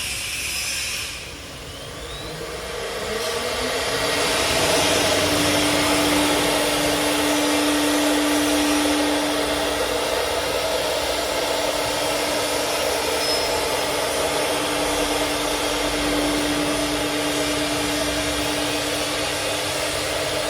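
Wood-processing CNC router spindle spinning up, its whine rising in pitch over about two seconds and then holding at a steady high speed. A loud, even rushing noise runs along with it.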